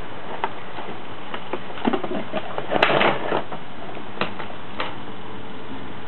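A vacuum cleaner runs with a steady rushing noise, over which come scattered clicks and knocks, the loudest about three seconds in.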